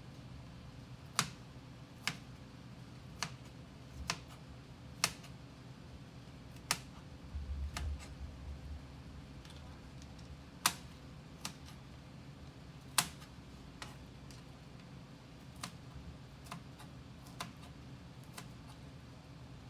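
Kitchen knife knocking on a cutting board as a bell pepper is cut: single, unhurried chops at irregular intervals, about fifteen sharp knocks in all, with a brief low rumble a little before the middle.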